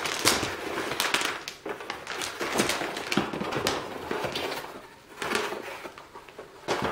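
Crinkling and rustling of a metallic anti-static bag, mixed with cardboard packaging being handled and scraped as a graphics card is lifted out of its box. The noises are irregular and busiest in the first few seconds, then thin out.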